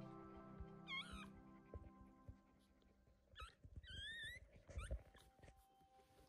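Newborn West Highland White Terrier puppy squeaking: three short high squeals that bend in pitch, about a second in and twice more around the middle, the last one longer. Soft clicks and rustling on the fleece bedding in between.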